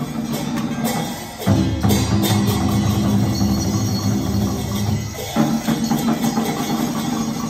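Live traditional Vietnamese ensemble music with drums and percussion. A deeper, held passage comes in about a second and a half in and gives way again after about five seconds.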